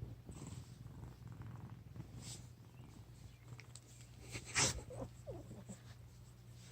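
Large house cat's steady low rumble, purr-like, in its sleep. About four and a half seconds in comes one louder, sharp sound, followed by a few short falling squeaks.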